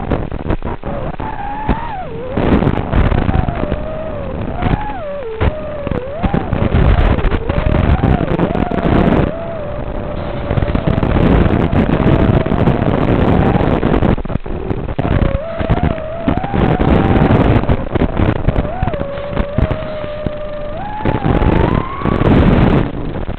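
FPV quadcopter's motors and propellers whining over a loud rushing noise, the pitch swinging up and down as the throttle changes and climbing sharply near the end.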